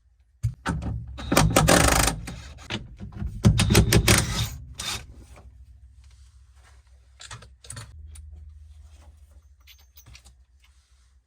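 Hard objects and packaging being handled: a dense clatter of clicks and rustling for the first few seconds, then a few scattered clicks and knocks over a faint low hum.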